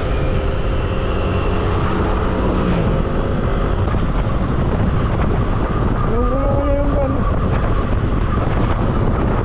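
Wind buffeting the microphone with the engine and tyre noise of a Yamaha NMAX 155 scooter cruising steadily at about 60 km/h.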